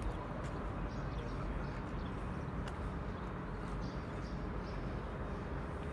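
Open-air city ambience: a steady low background rumble with small birds chirping in short high calls scattered throughout, and a few light clicks.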